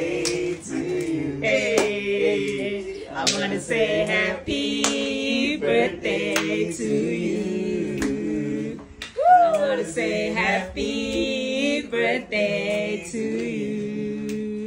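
A group of people singing together without instruments, holding long notes.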